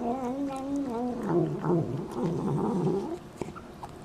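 Domestic cat making one long, drawn-out vocal call that wavers up and down in pitch for about three seconds, then stops.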